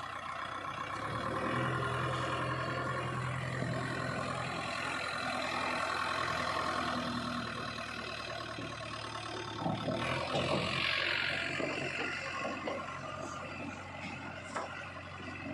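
Diesel engine of heavy earth-moving machinery running, rising in load about a second in. Irregular clattering and knocks, with a short rush of noise, come around ten seconds in.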